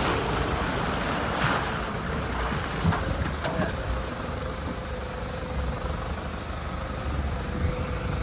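A vehicle engine running steadily under heavy wind rush on the microphone, with a low rumble throughout and a faint steady whine in the second half.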